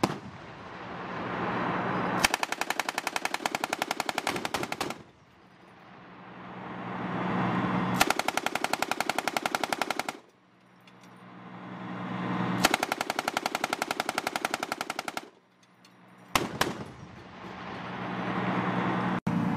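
A pintle-mounted 7.62 mm machine gun on a LAV-25 turret firing three long, rapid bursts of about two and a half seconds each, a few seconds apart, then a short burst of a few rounds near the end. The vehicle's engine hums steadily underneath.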